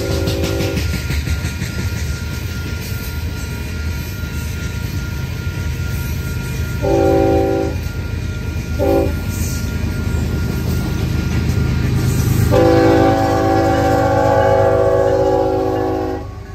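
Freight train rolling past with a steady low rumble of cars on the rails, while an approaching diesel locomotive sounds its multi-chime air horn. The horn gives a one-second blast about seven seconds in, a brief toot just after, and a long blast from about twelve seconds that cuts off just before the end.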